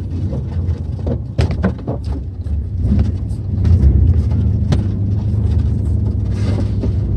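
Pickup truck on the move, heard from inside the cab: a steady low engine and road rumble with scattered knocks and rattles, growing louder a little under four seconds in.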